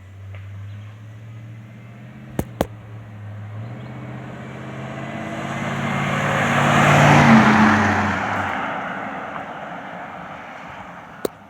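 2007 Chevy Silverado's 4.8-litre V8 through a Cherry Bomb Vortex muffler on a single exhaust, driving past under throttle: the exhaust note swells to a peak about seven seconds in, then fades as the truck pulls away. Two sharp clicks come about two and a half seconds in, and another near the end.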